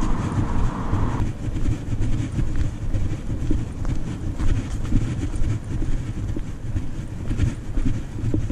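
Wind buffeting the camera microphone: a loud, uneven low rumble. A higher hiss stops abruptly about a second in.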